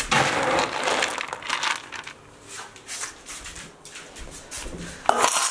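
Dry dog kibble rattling and scraping in a scoop, loudest in the first second, followed by scattered light clatter as the scoop is handled.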